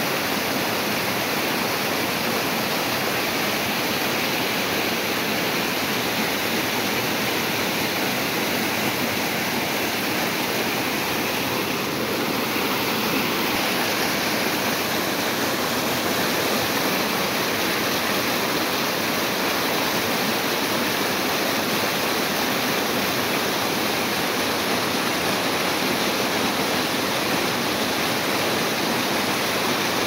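Waterfall cascading over rock ledges close by: a steady, unbroken rush of falling water.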